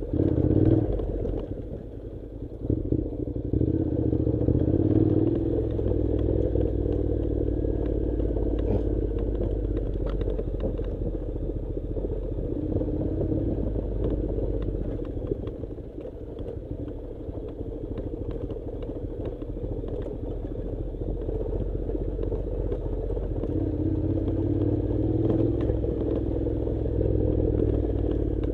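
Honda NC700 parallel-twin motorcycle engine running steadily while riding a rough dirt track, with many small clicks and clatter from stones under the tyres. The engine note dips briefly about two seconds in and again around the middle.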